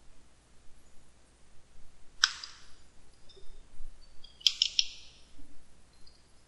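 Computer mouse click and then a quick run of three or four keyboard keystrokes, as a new number is typed into a box on screen; the keystrokes come about four and a half seconds in, after a single short rasping click about two seconds in.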